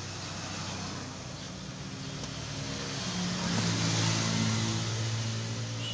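A motor vehicle's engine running, getting louder to its loudest about four seconds in, with a shift in pitch just before, then easing off.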